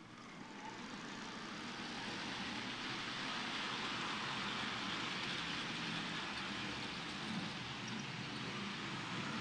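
Model trains running on a layout's track: a steady rolling rumble of small wheels and motors that builds over the first two seconds and then holds.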